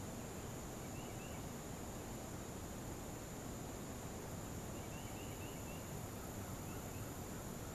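Steady high-pitched drone of crickets or similar insects, with a few faint short chirps about a second in, around five seconds in and again near seven seconds.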